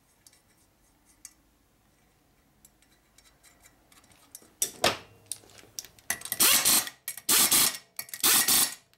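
Ratchet wrench tightening nuts on a shovelhead engine's cylinder head. It is quiet with faint taps at first, then from about halfway in comes a rasping ratcheting burst roughly once a second.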